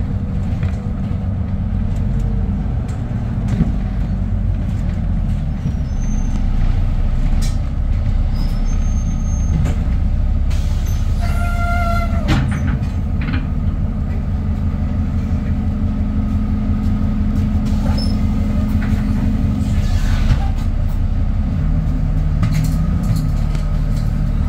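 Cabin noise inside an ADL Enviro 400 Trident double-decker bus: the diesel engine and drivetrain hum steadily, shifting in pitch as the bus moves slowly in traffic. A short pitched beep sounds about halfway through.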